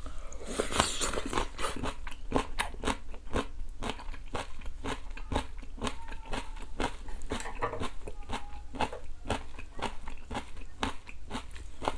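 Close-miked chewing of a mouthful of raw julienned radish salad (mu-saengchae): a steady, rapid run of crisp crunches.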